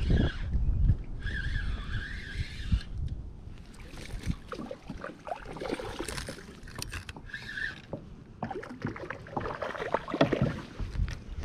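Knocks, clicks and rustles of handling in a fishing kayak as a small bass is brought aboard and dealt with.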